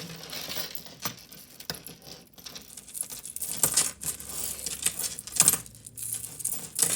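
Metal jewelry clinking and jingling as pieces are picked up and handled: irregular small clicks, with a few sharper clinks after the middle.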